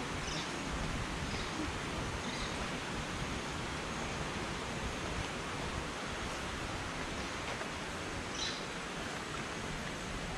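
Steady rushing outdoor ambience with a few faint, short high chirps of birds scattered through it.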